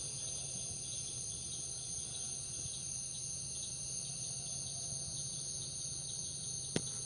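A steady chorus of insects, such as crickets, with a high ringing held at two pitches throughout. A single sharp click comes near the end.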